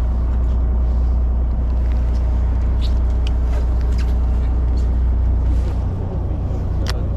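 Steady low rumble of a fishing boat at sea, with a few faint clicks; the rumble turns uneven near the end.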